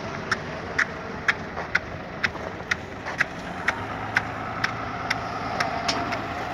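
Steady engine and vehicle noise with a sharp, regular tick about twice a second over it. A steady machine hum joins about four seconds in.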